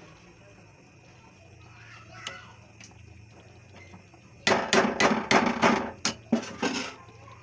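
A spoon clanking against the cooking pot as dal is stirred: a quick run of about eight sharp knocks lasting a couple of seconds, starting past the middle.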